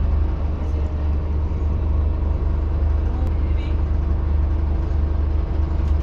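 Scania N230UD double-decker bus's five-cylinder diesel engine running, a steady low drone heard from inside the passenger saloon.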